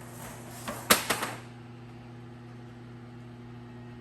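A quick run of sharp knocks about a second in, over a steady low hum.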